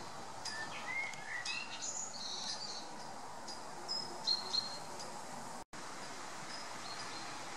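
Small birds singing in the trees: short high chirps and whistled notes, some gliding, busiest in the first few seconds, over a steady outdoor hiss. The sound cuts out for an instant after about five and a half seconds.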